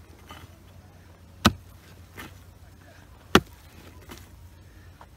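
A hoe chopping into the earth at the bottom of a trench: sharp single blows about two seconds apart, two clear strikes and a third at the very end.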